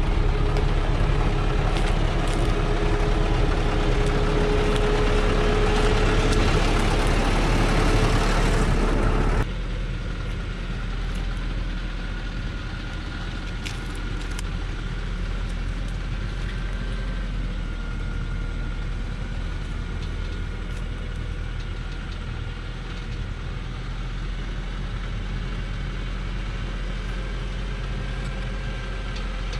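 Old Thaco Forland truck's diesel engine working hard at close range as the truck, loaded with acacia logs, moves on a steep dirt track, with a steady whine through it. About nine seconds in the sound drops suddenly to the same engine running steadily and more quietly from farther off.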